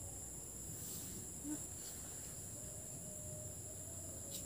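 Steady high-pitched chirring of night insects, crickets, with a couple of faint soft rustles.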